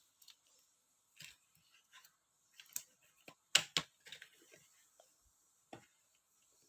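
Scattered light clicks and taps of small items and plastic or paper packaging being handled on a tabletop, with a pair of sharper clicks about three and a half seconds in.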